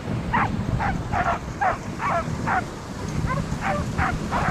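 Sled dogs barking and yipping over and over, about two short barks a second with a brief pause about three seconds in, over a steady low rumble.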